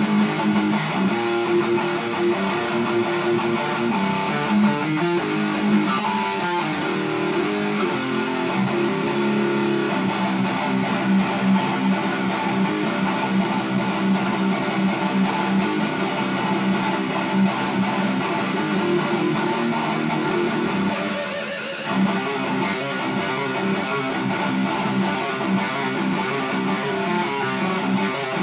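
Electric guitar played with a pick: a steady stream of picked notes and chords, easing off briefly about three-quarters of the way through.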